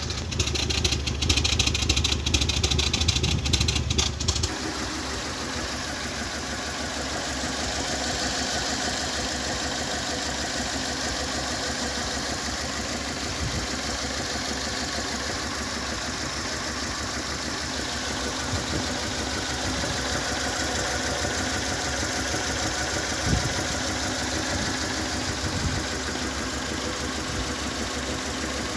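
Fiat Grande Punto petrol engine idling roughly and misfiring, with uneven knocks in its running: the sign of a burnt valve leaving it running on two or three cylinders. For the first four seconds or so the exhaust puffing at the tailpipe is louder, then the engine is heard from the bay.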